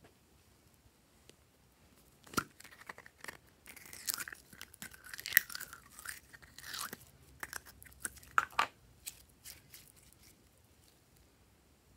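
Red glitter slime being peeled out of a cup and squeezed by hand, giving a run of sticky crackles and small pops from about two seconds in, densest in the middle.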